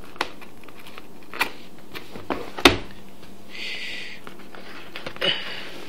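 Keyboard box and its packaging being handled and opened one-handed: a few sharp taps and knocks, the loudest about two and a half seconds in, and a short rustle at about three and a half seconds.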